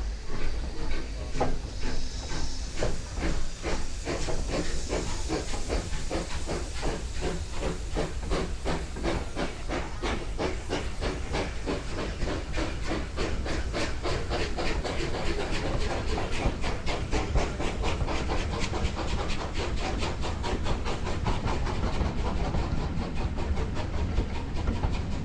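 Full-size steam locomotive working a train, its exhaust beats coming in a steady rhythm that quickens as the train gathers speed, over a steady hiss of steam.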